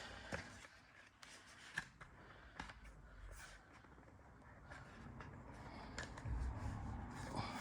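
Faint, scattered clicks and light handling noises of small hardware and tools being moved about.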